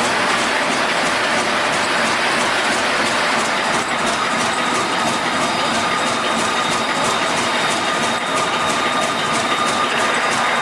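Workshop machinery running steadily: a constant dense noise with a thin high whine and a fast, even ticking of about three ticks a second.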